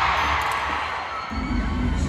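Live pop concert music played over the arena sound system, recorded from the audience with crowd noise underneath. The bass drops out briefly and comes back in about a second and a half in.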